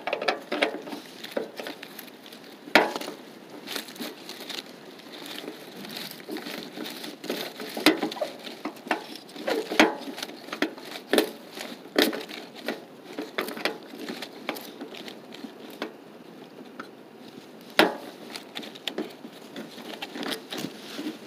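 Irregular clicks, taps and scrapes of hand-tool work on bolts up inside a car's wheel well, with a few sharper knocks.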